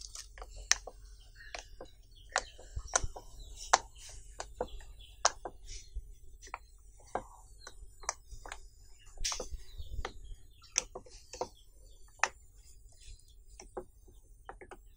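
Silicone pop-it fidget toy bubbles being pressed in one by one with a fingertip, each giving a short, sharp pop, at an irregular pace of about one or two a second.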